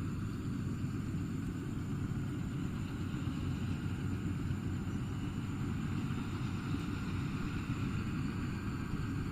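Rice combine harvester running steadily, its engine giving a constant low drone.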